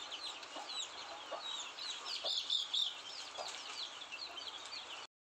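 A brood of country-chicken chicks peeping in a continuous stream of quick, high, falling chirps, with a hen's low clucks now and then. The sound cuts off suddenly near the end.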